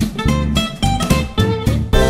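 Background music: a plucked guitar tune of short notes over a steady bass beat.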